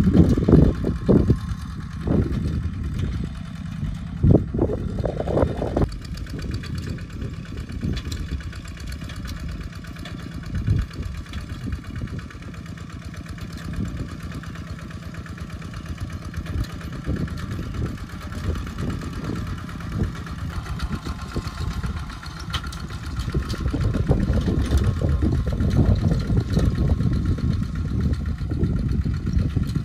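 Single-cylinder diesel engine of a two-wheel walk-behind tractor running steadily under load as it plows wet soil with cage wheels. It gets louder over the last several seconds.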